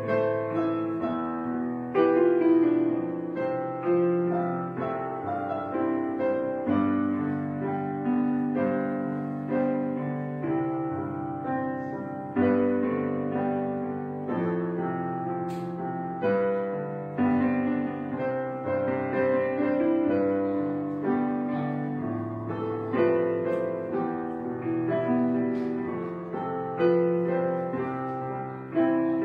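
Slow background piano music, notes struck one after another and left to ring and fade.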